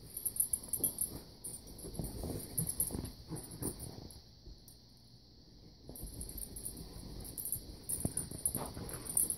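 Two small dogs scuffling and digging in blankets on a bed: rustling bedding and soft thumps, with a light jingling over it. The scuffle eases for a couple of seconds in the middle, then picks up again.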